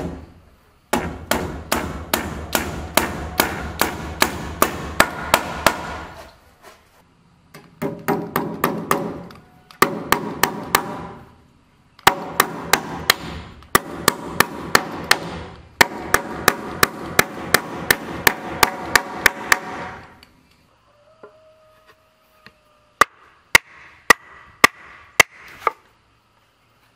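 Hammer driving nails into wooden door-frame boards in long runs of rapid, even blows, about three to four a second, with short pauses between runs. Near the end come a handful of separate, lighter blows.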